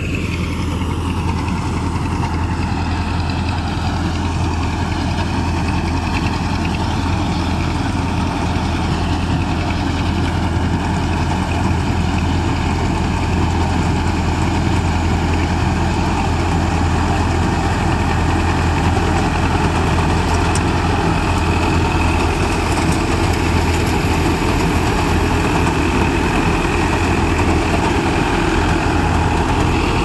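Tractor-mounted mini combine harvester on a Farmtrac 6055 tractor, running steadily as it cuts and threshes standing wheat: the tractor's diesel engine and the machine's threshing gear make a constant low hum.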